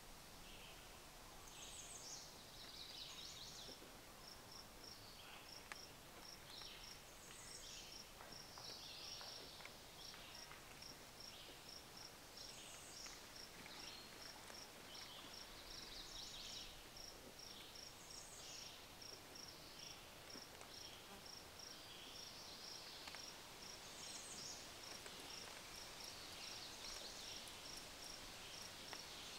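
Faint outdoor ambience: a steady high-pitched chirping about three times a second, with a short falling birdsong phrase repeated every five or six seconds.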